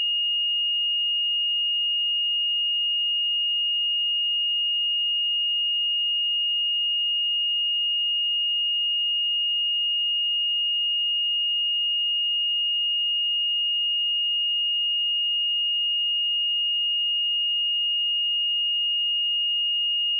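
A steady pure sine-wave test tone at 2852 Hz, a single high-pitched whistle-like note held at constant pitch and level.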